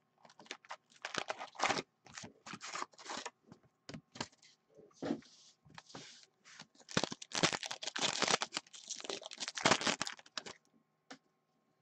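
Upper Deck Credentials hockey card packs and their cardboard box being handled and torn open: many short rustles, crinkles and tears of foil wrappers and cardboard, stopping about ten and a half seconds in.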